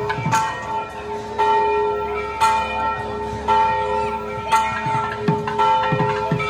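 A large temple bell struck about once a second, each stroke ringing on with several overtones until the next. Low thuds sound under it in the second half.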